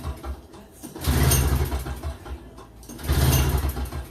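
Toro CCR2450 snowblower's 141cc two-stroke R-Tek engine being cranked in two attempts, each about a second long and about two seconds apart. It turns over but does not catch: a no-start on full choke after priming.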